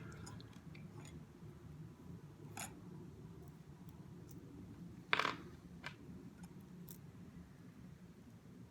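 Faint clicks of small tools and metal parts being handled while a model locomotive's bogie is put back together, with the loudest click about five seconds in, over a low steady hum.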